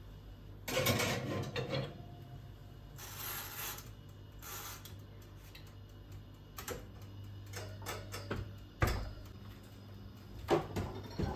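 Scattered knocks, clicks and rustling from objects being handled, the loudest a sharp knock about nine seconds in, over a steady low hum.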